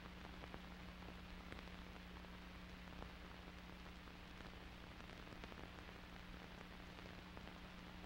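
Near silence: faint steady hiss with a low hum and a few soft ticks, the noise floor of an old videotape transfer before the soundtrack starts.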